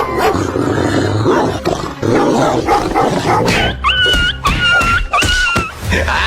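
Dog growling and barking in a rough, agitated run, then three short, high, level-pitched whines in the second half.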